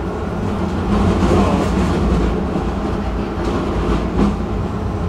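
Stockholm Tvärbanan tram running along its track, heard from inside the car: a steady low rumble of motors and wheels with a few faint clicks.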